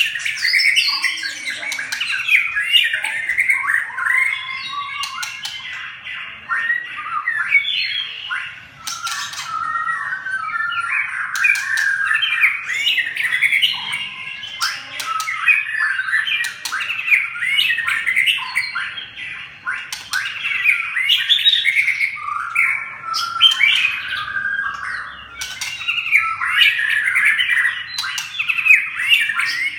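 Birds squawking and chattering without pause in harsh, rapid calls, typical of birds fighting, with scattered sharp clicks.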